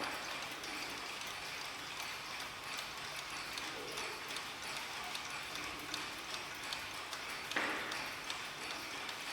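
Several mechanical mantel clocks ticking at once, their ticks overlapping in an uneven patter. About three-quarters of the way through there is one louder single hit with a short ring.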